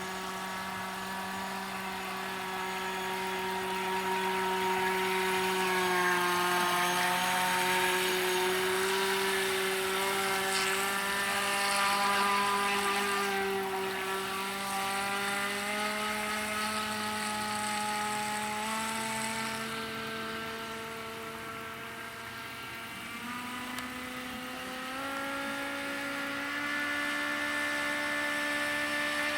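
FEILUN FT012 RC boat's brushless motor running with a steady whine that drifts up and down in pitch as the throttle changes.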